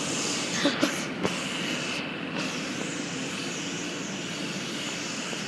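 Steady whirring drone of a stationary K set electric train's onboard equipment running while it stands at the platform, with a faint high whine.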